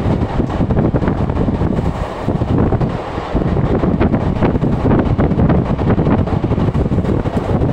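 Loud wind rushing and buffeting on the microphone at an open window of a fast-moving train, mixed with the train's running noise.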